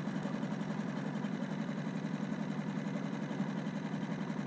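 Small outboard motor on an inflatable dinghy running steadily, with a fast, even chugging.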